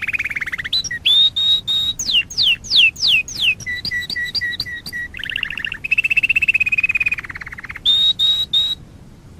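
Canary singing a varied song: a rapid rolling trill, a run of repeated high notes, five quick downward-sweeping whistles, a string of fast two-note chirps, then another rolling trill and repeated notes before the song stops near the end.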